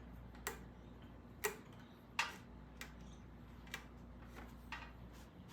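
Light, sharp clicks or taps, about one a second at uneven spacing, over a faint steady low hum.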